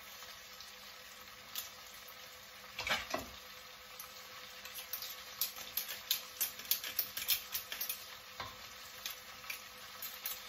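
Carrots sizzling faintly in a wok while a metal garlic press crushes a garlic clove over it, with a knock about three seconds in. From about four seconds in comes a quick run of metal clicks and scrapes as a knife scrapes the crushed garlic off the press.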